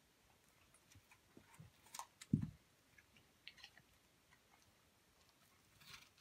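Hamiltonstövare dog biting and gnawing at an apple: sparse small crunches and clicks, with one dull low thump a little after two seconds in.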